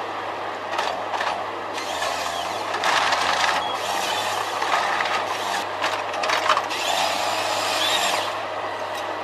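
Eco Log 590D forest harvester at work: its diesel engine runs steadily under a hydraulic whine, while the harvester head grips, feeds and saws a spruce trunk, giving repeated bursts of rushing, crackling noise and sharp snaps as branches are stripped and the saw cuts.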